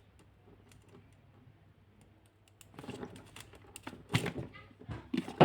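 Quick clicks and knocks of a plastic diesel fuel filter housing being handled as its top is lifted off. They start about halfway in, with a sharp knock near the end.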